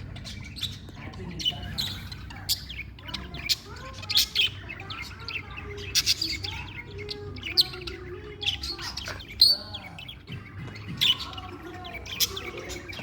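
Pet budgerigars chirping and chattering, a busy run of short sharp chirps mixed with warbling.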